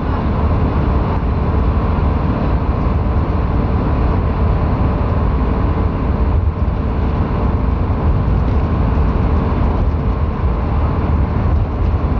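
Steady road and wind noise from a moving vehicle at cruising speed, a loud low rumble with engine hum underneath.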